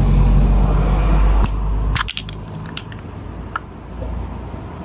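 Snap-fit plastic casing of a Worx cordless drill battery pack being prised open: a low rumble for the first second and a half, then sharp cracks and snaps as the clips let go about two seconds in, followed by a few lighter clicks.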